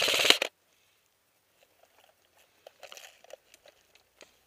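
A short burst of rapid airsoft fire, about half a second of fast, evenly spaced shots at the start, followed by scattered faint ticks and crackles of BBs striking trees and brush.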